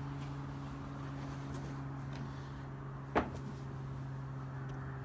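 One sharp plastic click about three seconds in, with a few faint ticks, as push-pin pop clips are pried out of the trunk-lid liner, over a steady low hum.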